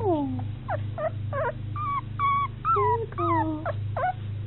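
A young puppy whimpering: a run of short, high squeaks and whines, many falling in pitch and a few drawn out a little longer. A steady low hum runs underneath.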